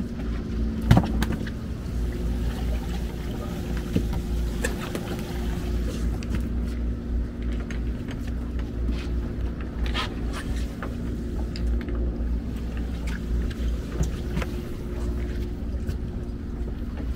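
A boat's engine running steadily with a low rumble and hum, with a few sharp clicks and knocks on board.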